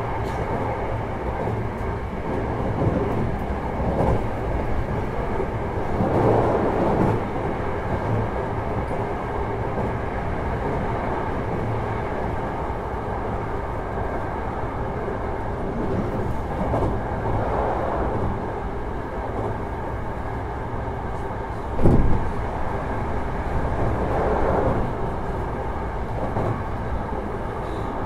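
Hankyu 1000 series electric train heard from inside a car while running between stations: steady wheel-on-rail rumble with faint steady whines from its permanent-magnet synchronous traction motors. The rumble swells every few seconds, and there is one sharp knock about three-quarters of the way through.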